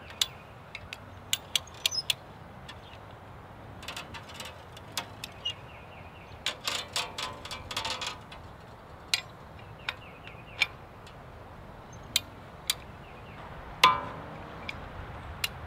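Irregular sharp clicks and clinks, about a dozen, over a faint steady background. A brief pitched sound comes about seven seconds in, and another near the end.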